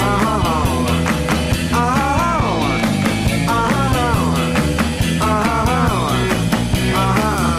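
Rock backing music with a steady drum beat and a repeating wavering lead phrase, about every second and a half.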